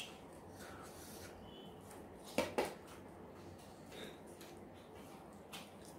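Quiet mukbang eating sounds from two people eating fried rice and chicken with their hands: soft handling of food on the plates and mouth sounds, with two sharp clicks close together about two and a half seconds in.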